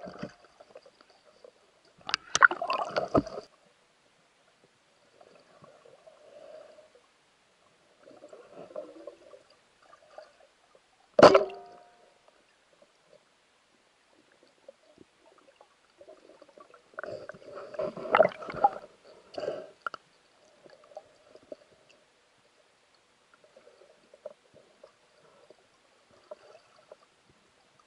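Underwater water noise from a diver's movement: gurgling and sloshing that comes and goes in irregular spells, with one sharp knock and brief ringing about eleven seconds in.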